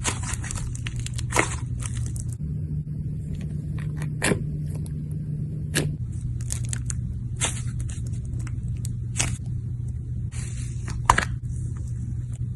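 Slime being squeezed and pulled by hand, giving scattered sharp wet clicks and short crackling, tearing bursts, the loudest about 11 seconds in. A steady low hum runs underneath.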